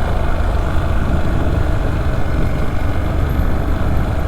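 Motorcycle running steadily on a steep downhill trail, its engine sound mixed with heavy low wind rumble on the helmet-mounted camera's microphone.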